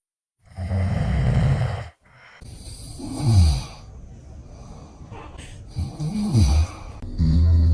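A man snoring loudly: one long snore about half a second in, then quieter breathing with a couple of short falling-pitch sounds, and another loud snore near the end.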